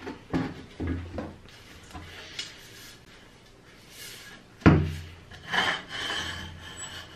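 Rusty 1955 Muratori copper hand-pump sprayer handled on a wooden tabletop. A few clunks come as it is lifted and tipped, and one sharp, loud knock a little over halfway through as it comes down on the table. Then metal rubs and scrapes as the pump rod is drawn out of the barrel.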